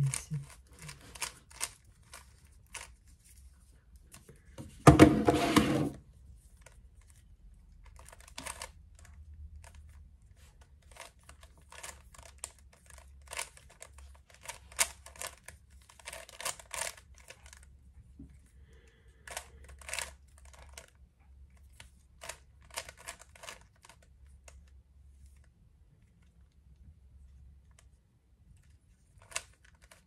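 Plastic Rubik's cube layers being turned by hand: clusters of quick clicking turns separated by pauses. About five seconds in there is a louder burst of noise lasting about a second.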